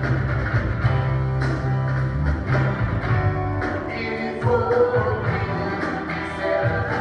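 Praise band playing a worship song: guitar and bass with singing over it and sharp regular beats through it.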